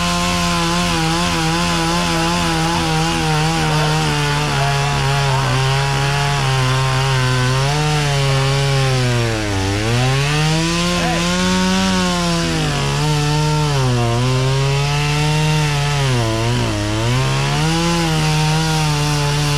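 Two-stroke chainsaw running at high revs, its engine note sagging and recovering several times in the second half as it bogs in the cut. The chain is dull, which the operator says is already gone.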